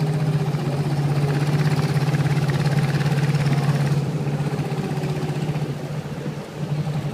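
Long-tail boat engine running steadily with a fast, even pulse, easing off a little after about four seconds and dropping further near the end.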